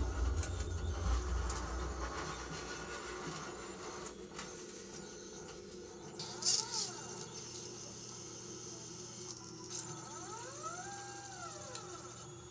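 The electric drive of a magnet-moving mechanism (stepper motor and servos) whining under a steady hum. Twice the whine rises in pitch, levels off and falls again as the motor speeds up and slows down, the second time longer, near the end. A low rumble sounds in the first two seconds.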